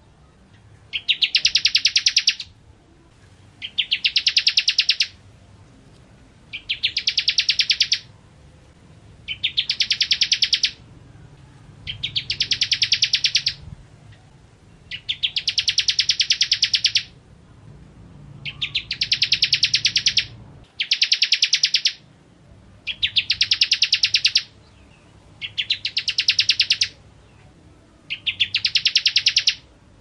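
Bar-winged prinia (ciblek kristal) singing: a rapid, high trill of fast repeated notes about a second and a half long, given about ten times with short pauses between.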